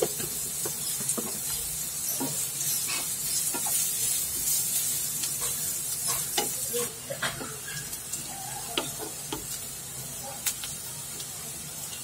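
Chopped onions sizzling in hot oil in a non-stick kadai while a wooden spatula stirs them, scraping and tapping against the pan. The sizzle drops noticeably about seven seconds in.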